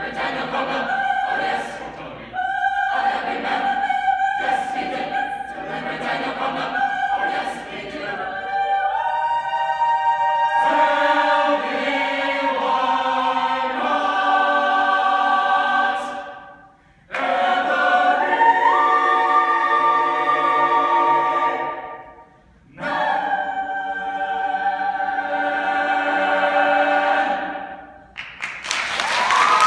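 Mixed chamber choir singing a spiritual in close harmony: short rhythmic chords at first, then long held chords broken by two brief pauses, closing on a final chord. Audience applause breaks out right at the end.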